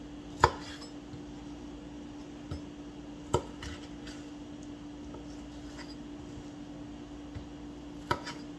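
Kitchen knife dicing a tomato on a cutting board: a few separate knocks of the blade on the board, the loudest about half a second in and a pair near the end, over a steady low hum.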